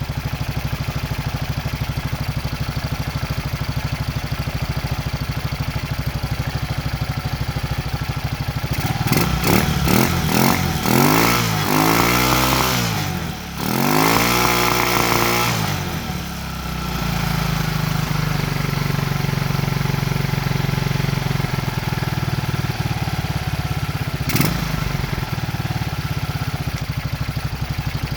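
Racer 164FML 200 cc single-cylinder pushrod engine with a balance shaft, running on its first start after a repair. It idles steadily, is revved up and down in several short blips from about nine to sixteen seconds in, then settles back to a steady idle with a single sharp click near the end.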